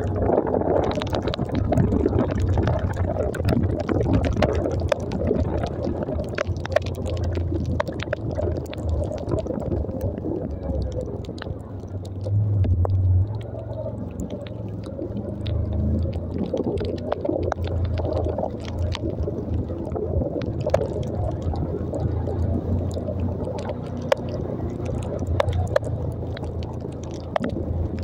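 Motorcycle riding over a wet, flooded road: a steady low rumble of engine and wind on the microphone, with scattered small clicks from water and spray. A louder surge about twelve seconds in.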